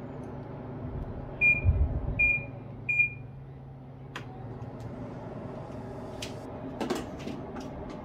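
Samsung wall-mounted air conditioner indoor unit beeping three times as it takes commands from its remote, over the steady low hum of its fan running after a full cleaning and new fan motor bearings. A low thump comes with the beeps, and soft clicks follow in the second half.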